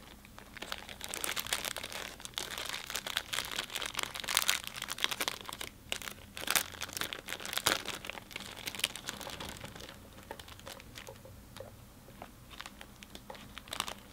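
Clear plastic packaging bag crinkling and crackling as hands handle and open it and draw out small plastic bottles. The crinkling is dense from about half a second in and thins to scattered crinkles after about ten seconds.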